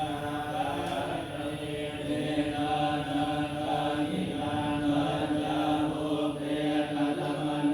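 Buddhist monks chanting Pali verses in unison, a continuous recitation held on a nearly steady pitch.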